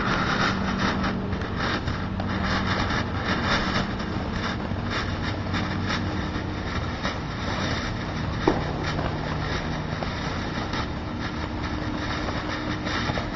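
Great Grizzly White Glory fireworks fountain burning: a steady rushing hiss of spraying sparks, flecked with rapid crackles, and one sharp pop a little past halfway.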